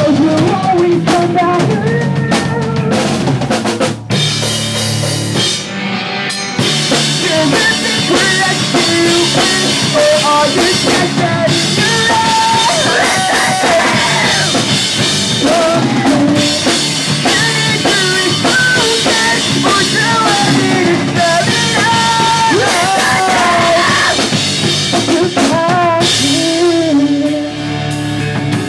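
Pop punk band playing a song live: loud amplified band sound driven by a full drum kit, with bass drum and snare hits throughout.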